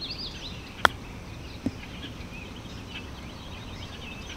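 A golf wedge striking the ball on a chip shot: one sharp click about a second in, followed by a fainter tick. Birds chirp faintly, mostly at the start.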